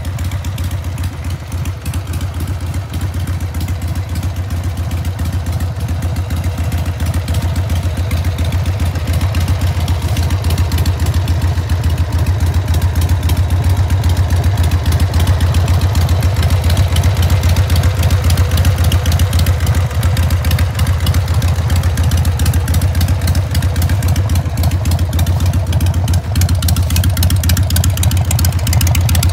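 2001 Harley-Davidson Sportster XLH883's air-cooled, carbureted 883 cc V-twin idling steadily, a low even rumble that grows louder over the first ten seconds or so.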